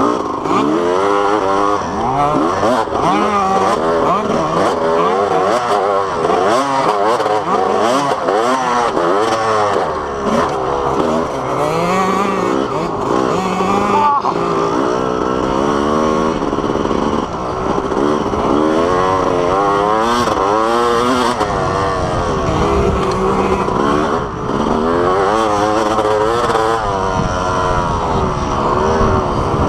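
Dirt bike engine running hard as it is ridden around a motocross track, its revs climbing and dropping again and again with throttle and gear changes, heard up close from a camera mounted on the bike.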